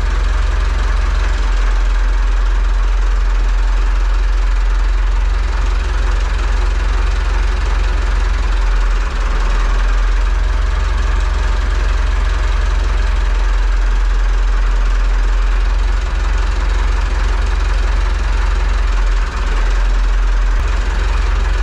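Renault 70-34 tractor's Perkins diesel engine idling steadily on its first run after a clutch replacement.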